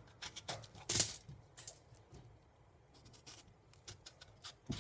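A kitchen knife cutting slices off a peeled green plantain held in the hand: a scattering of short cutting clicks and scrapes, with one louder click about a second in.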